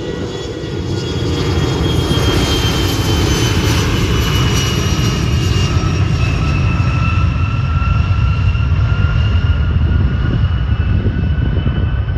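Jet aircraft engines passing close by, with a loud steady rumble under a high whine that slowly falls in pitch as the jet goes past.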